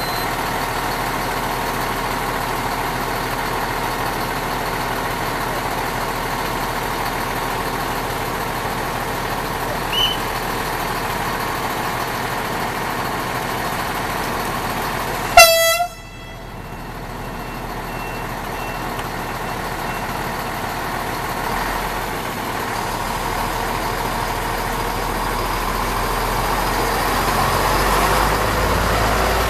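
Romanian CFR Siemens Desiro diesel multiple unit standing at a halt with its engines running steadily. About halfway through it gives one short, loud horn blast. Near the end the engine sound grows louder as the train starts to pull away.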